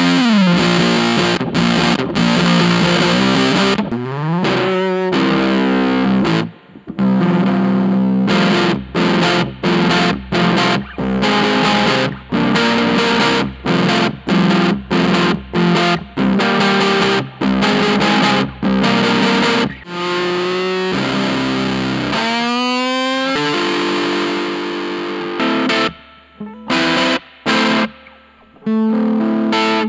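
Electric guitar played through a Gone Fishing Effects 'Rage of the Tsar' germanium fuzz pedal: thick, fuzzed-out chords. Stretches of short, chopped chords with brief stops between them alternate with held chords, and a few sliding glides in pitch.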